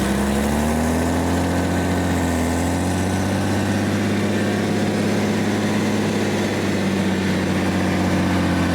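A 20-series Toyota Soarer's engine running steadily with the automatic in Drive, its pitch rising slightly about a second in and then holding.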